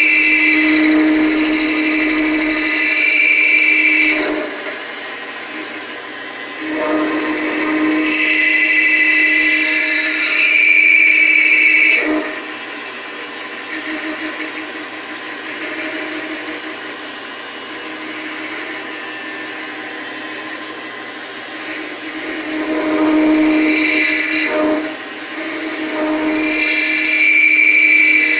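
Metal lathe running while turning a metal bar, the cutting tool screeching through three loud cuts with quieter running between them.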